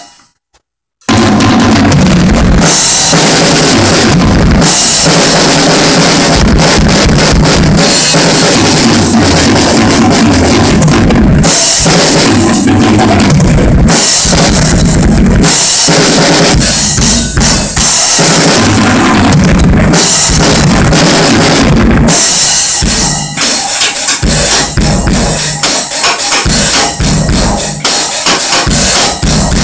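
Acoustic drum kit played hard: bass drum, snare and cymbals, very loud, starting about a second in. In the last several seconds the hits grow choppier, with short gaps between them.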